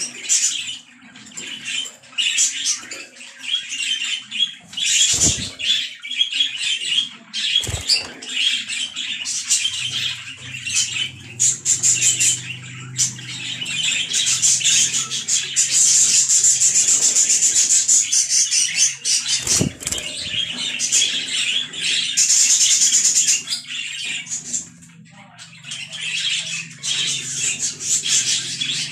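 Budgerigars chattering and warbling, a rapid, continuous high twittering with a brief lull near the end, and a few short low thumps.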